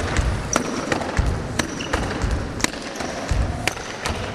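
Rhythmic karate footwork on a wooden sports-hall floor: bouncing steps and stamps, with sharp snaps about once a second and a few short squeaks.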